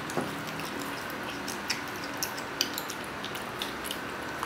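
A cat chewing raw chicken meat, with irregular wet smacking and clicking sounds, over a steady background hum.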